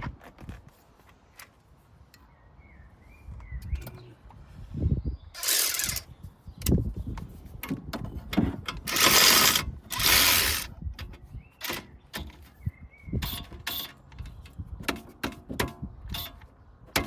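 Hand tools working on a car's brake assembly: ratchet clicks and metal knocks, with two loud hissing bursts in the middle, the second lasting about two seconds.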